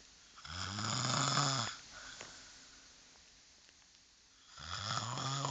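A person snoring loudly: one long low snore lasting just over a second, then a quieter pause, and a second snore starting near the end.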